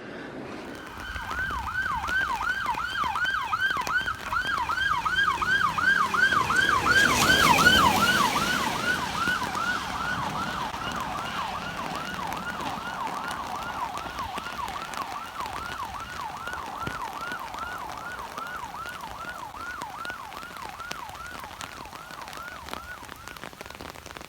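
Emergency vehicle siren in a fast yelp pattern, about three rising-and-falling wails a second. It grows louder until about seven seconds in, then slowly fades as it moves away.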